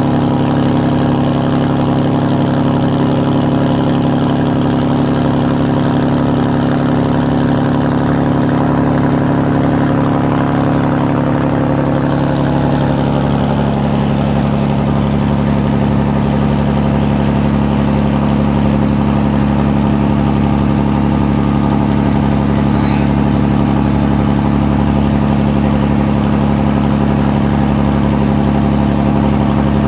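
A ferry's engine running steadily with a deep drone. Its pitch steps up a little about twelve seconds in.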